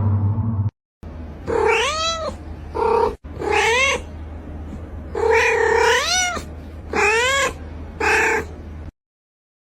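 A cat meowing repeatedly: about six drawn-out calls, each rising and then falling in pitch, over a steady low hum.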